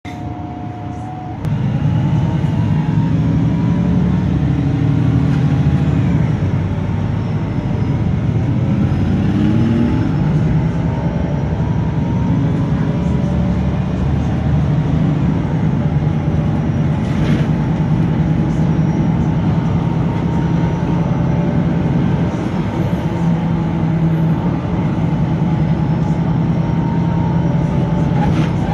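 VDL SB200 single-deck bus running, heard aboard: a steady engine drone with a groaning noise, louder from about a second and a half in.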